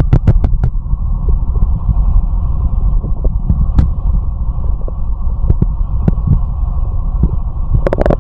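Amplified stomach and heartbeat sounds: a steady low rumble with many irregular short clicks and knocks.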